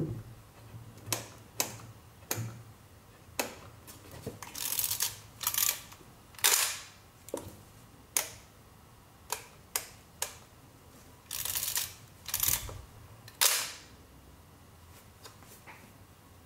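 Kiev-19 35 mm SLR camera and its Kalimar zoom lens being worked by hand: a series of sharp mechanical clicks mixed with several short rasping strokes, about fifteen in all, the loudest about six and a half seconds in. The sounds stop about two seconds before the end.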